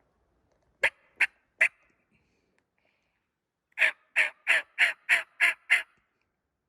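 Turkey yelping, loud and close: three short yelps about a second in, then an evenly spaced run of seven yelps at about three a second.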